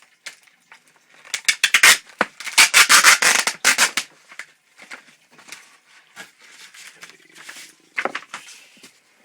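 A cardboard box being ripped open by hand: loud tearing and crunching starts about a second in and runs for nearly three seconds, then quieter rustling and one more short rip near the end.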